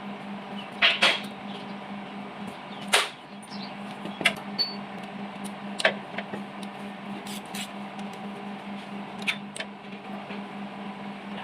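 About half a dozen sharp metallic clinks and knocks of tools and engine parts being handled during an engine teardown, over a steady low hum.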